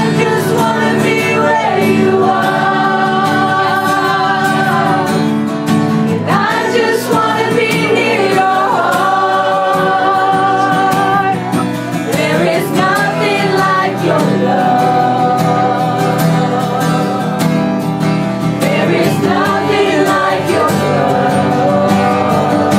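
Worship music: voices singing a wordless, free-flowing melody over sustained chords and guitar.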